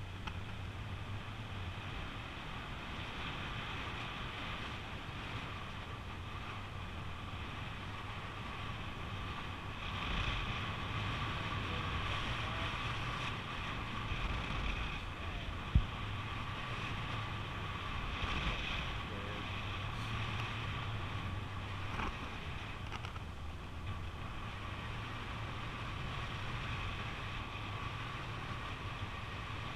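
Steady airflow rushing over an action camera's microphone in paraglider flight, with one brief sharp knock about halfway through.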